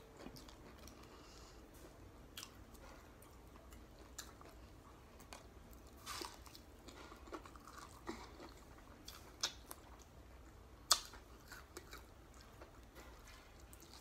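Chewing and biting on Popeyes fried chicken: soft mouth sounds with scattered sharp crunches, the loudest about eleven seconds in.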